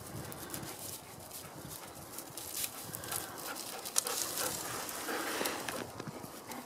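Gundog panting close by, with dry rough grass swishing and crunching under footsteps.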